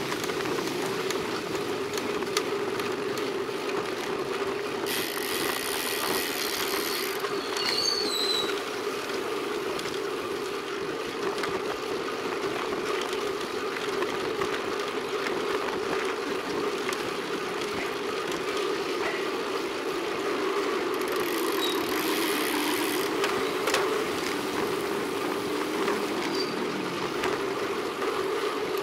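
Road bike rolling along a concrete street: steady tyre and road noise with small rattles, broken twice by a few seconds of rear freewheel ticking while coasting, about five and about twenty-one seconds in.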